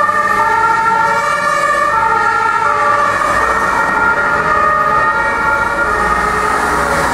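Several fire engines' two-tone sirens (German Martinshorn) sounding at once, their alternating high-low notes overlapping out of step. Truck engines run underneath and grow louder near the end.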